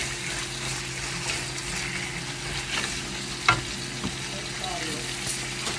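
Food frying in a pan, a steady sizzle, with one sharp tap of a utensil about three and a half seconds in.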